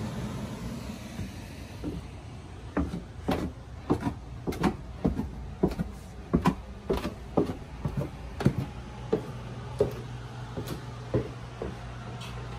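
Footsteps climbing a flight of stairs, a regular run of short knocks at about two steps a second, over a steady low hum.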